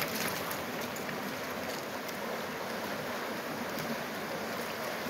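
A rocky creek rushing over riffles: a steady wash of running water.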